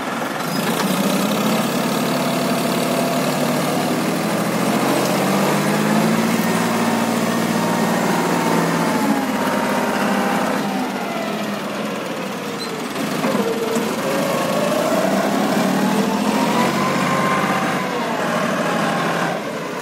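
Tractor-mounted combine harvester's diesel engine running steadily under load while stuck in mud. A whine above it falls and rises in pitch in the second half.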